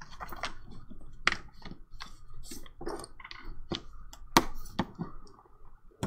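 Kraft paper envelope being pressed flat and its fold creased with a bone folder: irregular paper rustles, scrapes and small clicks, with metal bangle bracelets clinking, the sharpest click a little over four seconds in.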